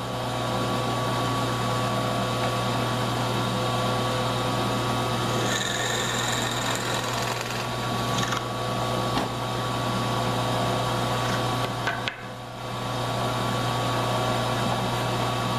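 Drill press motor running steadily with a constant hum. From about five and a half to eight seconds in, a higher whine joins it as the bit bores a hole into the end of a wooden rib.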